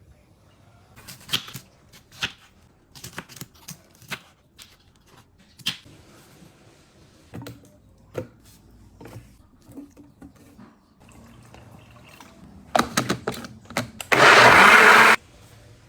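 Scattered kitchen knocks and clicks, then a louder clatter and an electric blender running for about a second near the end, likely blending pineapple for the remedy.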